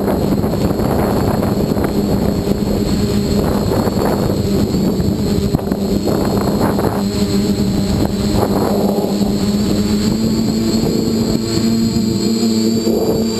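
Quadcopter's electric motors and propellers buzzing steadily, picked up by the camera on board, with wind rushing over the microphone. The hum shifts up a little in pitch near the end.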